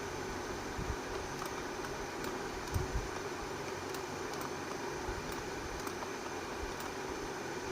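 Steady background hiss with a low hum, and a few soft low knocks about one second and three seconds in.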